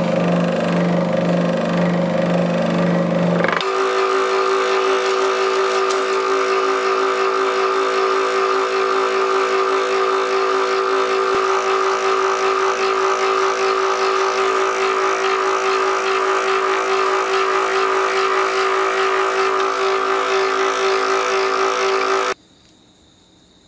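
Small benchtop band saw running steadily while it cuts through a block of red wax, a pattern for a cast sword guard, with a steady motor hum and whine. The pitch shifts suddenly about three and a half seconds in, and the sound cuts off abruptly near the end.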